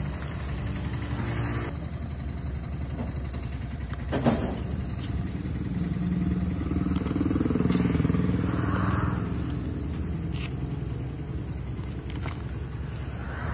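A low, steady engine rumble that swells about seven to nine seconds in, with a sharp click about four seconds in.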